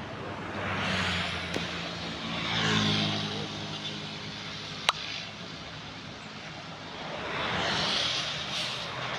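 Road vehicles passing by: one goes past in the first few seconds with a slightly rising engine note, a second swells past near the end. A single sharp click about five seconds in.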